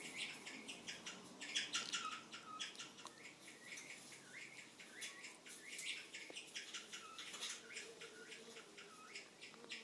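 Small birds chirping rapidly and over and over, each call a short, high, falling note, heard through a television's speaker.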